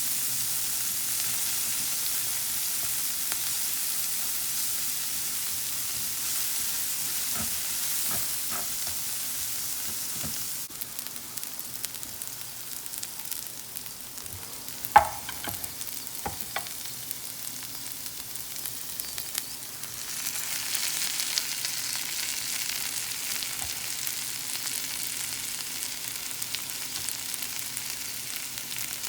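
Cauliflower steak sizzling in a frying pan, a steady hiss that dies down about a third of the way in. Around the middle comes a sharp metallic clink with a few lighter taps, and the sizzle picks up again soon after.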